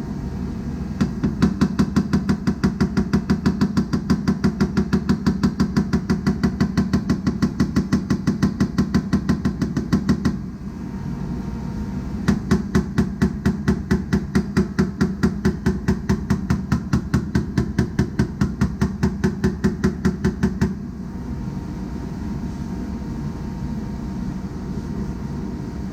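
A body pick hammer tapping sheet metal to raise and level low spots in a vehicle body panel. The light taps come evenly at about four a second in two long runs, with a pause about ten seconds in, and they stop about twenty seconds in.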